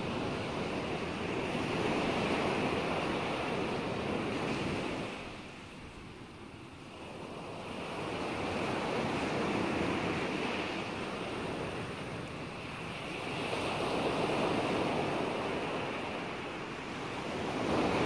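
Ocean water noise: a rushing wash, like surf, that swells and fades slowly, with a quieter dip about five to seven seconds in.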